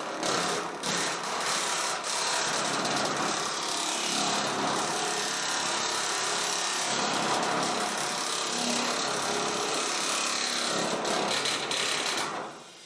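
A power tool running steadily as it works on metal roofing panels, one continuous run that stops shortly before the end.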